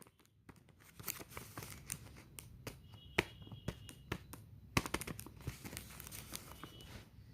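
Blind-box packaging being handled and opened: the wrapper crinkles and rustles with irregular sharp crackles and snaps, the loudest just after three seconds in and near five seconds.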